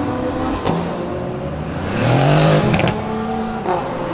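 Several sports car engines running as the cars drive past slowly in convoy, one revving with a rising pitch about two seconds in. A couple of short sharp clicks stand out over the engines.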